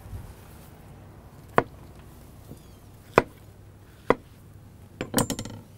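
Kitchen knife slicing bananas, the blade knocking down onto the surface beneath in three sharp, separate taps. Near the end comes a quick flurry of clinks with a brief ringing tone.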